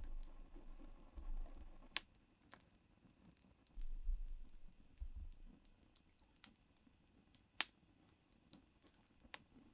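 Small wood fire crackling: scattered sharp pops and clicks, with two louder snaps, one about two seconds in and one near three-quarters of the way through. A few brief low rumbles in the first half.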